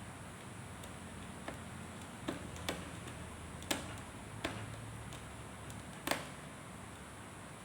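A handful of sharp, irregularly spaced small clicks and taps, like tools and small parts being handled during computer repair work, over a steady faint hiss.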